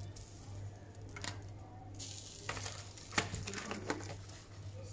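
Kitchen food-prep handling: a few light taps and clicks, most in the second half, over a soft steady hiss and a low hum.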